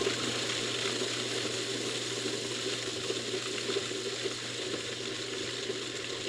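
Food processor running steadily, its blade churning oat flour into thick date paste that is not yet fully mixed into a dough.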